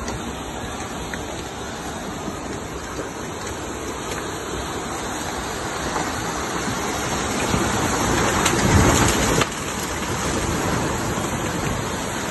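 Heavy rain falling steadily. The rushing grows louder after about six seconds and drops back suddenly some three seconds later.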